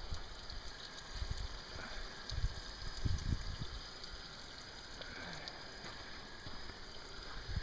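Faint, steady hiss of water running from a garden hose into a boat's hull, with a few low thumps.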